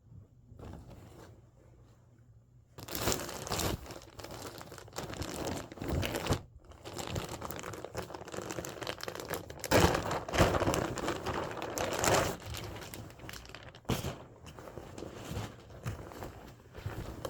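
Irregular crinkling and rustling that starts about three seconds in and goes on in uneven spurts, loudest in the middle.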